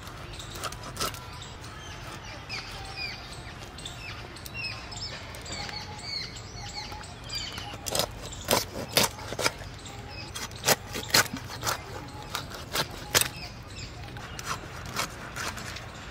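Birds chirping in the background. About halfway through comes a series of sharp cracks and knocks, about a dozen, as a rohu is pressed down onto an upright boti blade and chopped into steaks through the bone.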